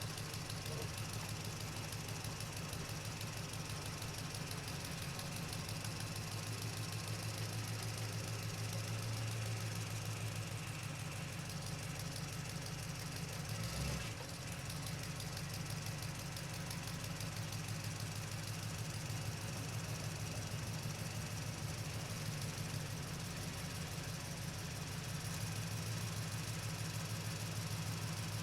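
Truck engine running steadily while driving, a low, even, pulsing drone. There is a brief low bump with a slight dip in level about halfway through.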